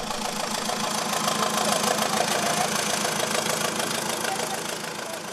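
Avia 31T trial truck's engine running as the truck crawls over a steep dirt mound, a steady engine sound that eases off slightly near the end.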